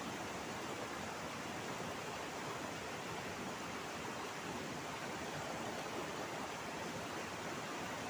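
Fast, shallow river rushing over rocks: a steady, even rush of water with no breaks.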